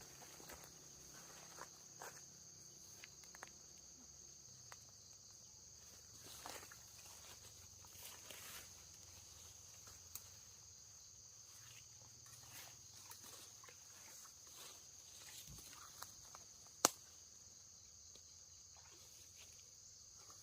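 Insects chirring steadily with one high, even buzz, under faint scattered rustles and small clicks, with one sharper click about 17 seconds in.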